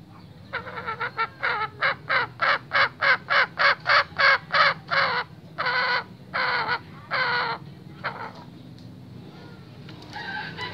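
Male junglefowl giving a long run of loud, harsh cackling calls, about twenty in all: short and quick at first, about three or four a second, then three longer, spaced calls and a last short one. It is the agitated call of a restless male junglefowl.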